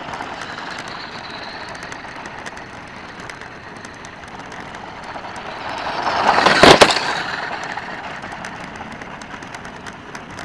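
WPL D12 radio-controlled mini truck's electric motor and tyres crunching over gravel, growing louder as it drives past close by about six to seven seconds in, then fading away. A sharp knock comes at the loudest moment of the pass.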